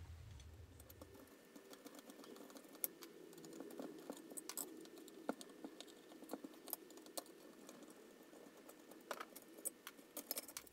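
Light, irregular clicks and taps of a screwdriver, small screws and plastic parts as a Geiger counter's circuit board assembly is unscrewed and taken apart, over a faint steady hum.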